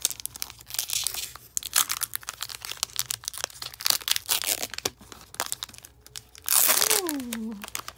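Foil Pokémon booster pack wrapper crinkling and crackling as it is worked by hand, with a loud rip about six and a half seconds in as the pack tears open. A short exclamation falling in pitch follows.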